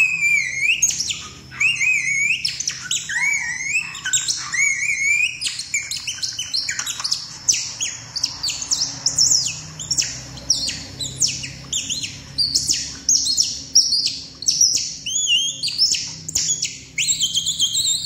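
Several songbirds chirping and whistling together in a busy chorus, with sliding whistled notes and quick downward-sweeping calls overlapping, over a faint steady low hum.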